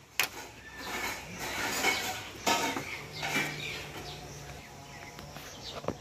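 Metal clinks and clanks of hand tools and steel parts knocking together during work on a power tiller's opened gearbox, a few sharp knocks among lighter scattered clatter.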